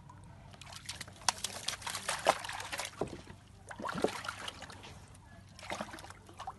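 Young black leopard splashing and sloshing water in a plastic tub with its paws and head. There is a long bout of splashing about a second in, then two shorter ones.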